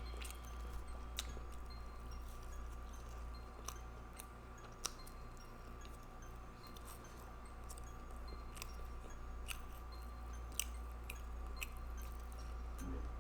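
A person chewing a mouthful of burger, with scattered sharp wet mouth clicks, two of them louder, over a steady low hum.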